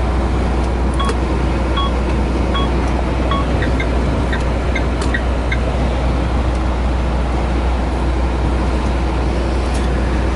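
Steady low engine drone and road noise inside a lorry cab while driving. Four short beeps about a second apart sound early on, followed by a few faint clicks.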